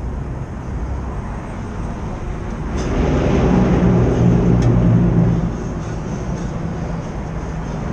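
A motor vehicle passing by. Its engine hum swells for a couple of seconds in the middle and fades again, over a steady low rumble.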